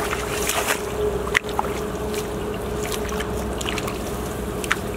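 Hands rustling through grass stalks and working in wet mud, with a few short clicks and snaps, the sharpest about a second and a half in. Under it runs a steady background noise with a constant low hum.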